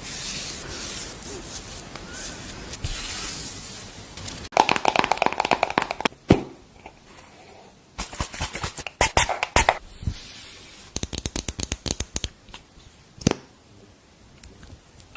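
Makeup items handled close to the microphone: a scratchy brushing hiss for the first few seconds, then several bursts of rapid tapping and clicking, with one last sharp click near the end.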